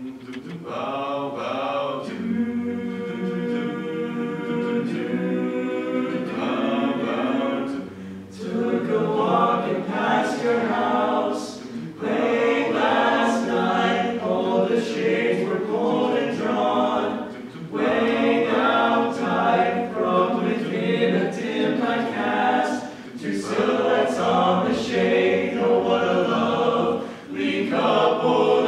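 All-male a cappella group singing in close harmony without instruments. It opens on held chords for a few seconds, then moves into sung phrases broken by short pauses.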